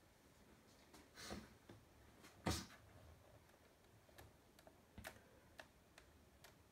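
Near silence: room tone with a few scattered faint clicks, the loudest a soft knock about two and a half seconds in.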